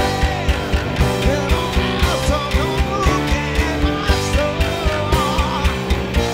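Live rock band playing a song: drum kit keeping a steady beat under bass guitar, electric keyboard and guitar, with a voice singing the melody.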